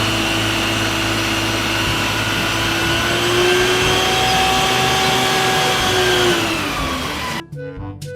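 Toy water tanker truck's engine sound, a steady whirring hum whose pitch rises slightly in the middle and then falls away before it cuts off near the end, giving way to background music.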